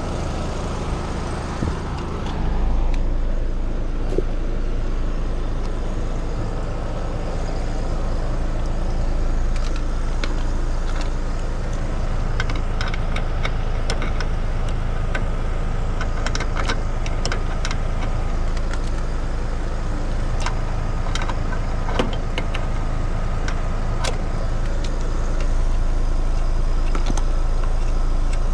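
An outdoor air-conditioner condenser unit runs with a steady low hum from its compressor and fan, which grows stronger a couple of seconds in. Over the hum come scattered small clicks and taps as pressure probes are handled at the unit's service ports.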